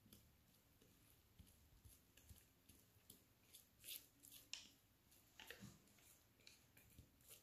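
Near silence with faint, scattered sticky clicks and scrapes: very wet, high-hydration focaccia dough slithering out of a glass bowl onto an oiled parchment-lined tray as a spatula works it loose. The two loudest clicks come a little past the middle.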